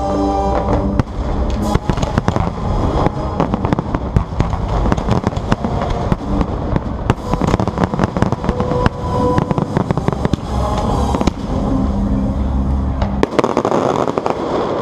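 A fireworks display going off in a rapid, dense run of bangs and crackling, with the show's music playing underneath. Near the end the deep booms stop and crowd noise takes over.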